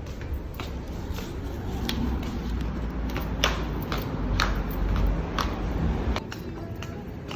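Footsteps on a hard surface, sharp taps about two a second, over a low steady rumble.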